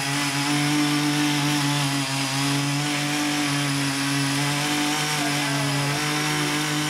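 Ching Yee CY50-TH48 mini garden tiller, its 48.6cc engine running steadily at working speed while its rotary tines churn through garden soil.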